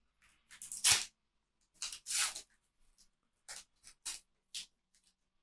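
Panini sticker packet being torn open and its stickers handled: a handful of short rustles, the loudest about a second in.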